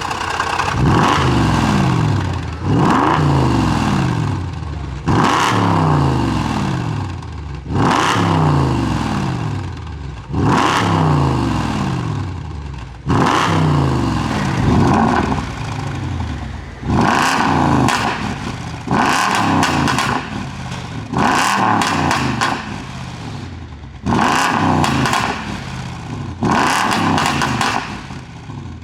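Mercedes-Benz W221 S500's V8 being revved in repeated blips, the revs jumping up and falling back about every two and a half seconds. Its exhaust pops and crackles as the revs drop, from a pop-and-crackle tune, with the cracks coming thicker in the second half.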